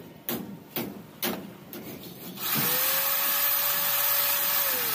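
Corded electric drill boring a hole through a PVC pipe wall with a long thin bit. The motor whine spins up about halfway through, runs steadily, and winds down just before the end. Before it there is a series of sharp taps, about two a second.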